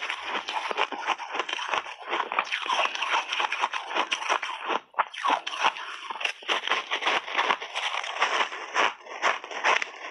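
Frozen mixed-berry ice balls being chewed: a rapid, continuous run of crisp crunches, with a brief pause about five seconds in.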